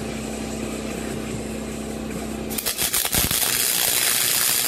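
A steady hum, then, about halfway in, an electric welding arc strikes and crackles loudly and steadily with spatter as a steel disc is welded onto the end of a steel shaft.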